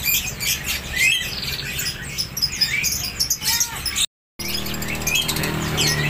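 A chorus of many caged small birds chirping and tweeting at once, with rapid, overlapping high chirps and short whistles. The sound cuts out completely for a moment about four seconds in.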